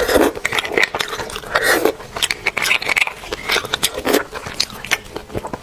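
Close-miked mouth sounds of eating beef bone marrow: about three short sucking slurps as the marrow is drawn off a thin pick, among many small clicks of lips and mouth.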